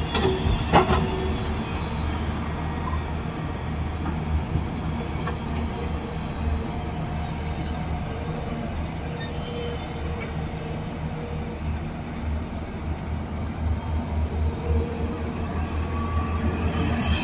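Hyundai crawler excavators running under load while digging and loading soil: a steady low diesel-engine drone with a hydraulic whine over it. There are a couple of sharp knocks near the start.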